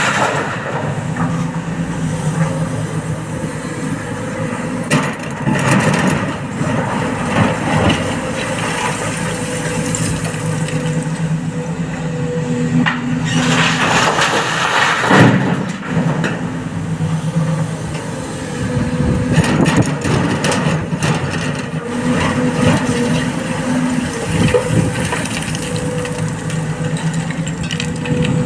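Excavator's diesel engine running steadily under load, with loose stone crashing and rattling into a dump truck's steel bed several times.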